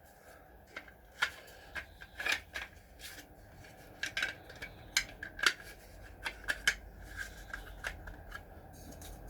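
Hard 3D-printed plastic parts clicking and tapping against each other as they are handled and fitted together: a couple of dozen short, irregular clicks.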